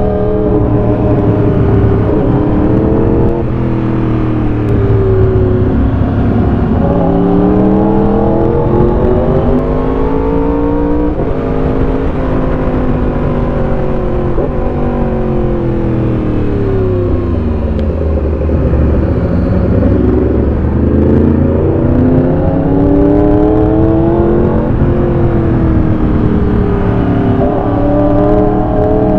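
Motorcycle engine under way, speeding up and backing off over and over so its pitch climbs and drops, with a long slow fall in pitch about halfway through before it climbs again.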